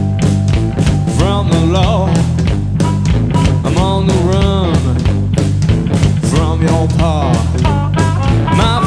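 Blues-rock band playing an instrumental passage: steady bass and drums under a lead line of bent, sliding notes in short phrases.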